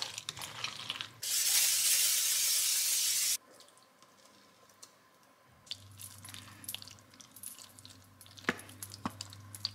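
A spoon scraping and stirring macaroni and cheese in a steel pot. Then a loud, steady hiss lasts about two seconds and cuts off suddenly. After a short quiet spell, soft taps and scrapes of a spoon in a foil baking pan come over a low hum.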